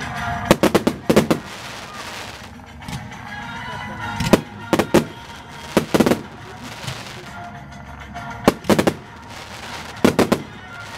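Fireworks shells bursting aerially: clusters of two to five sharp bangs in quick succession, repeating every couple of seconds, over background music.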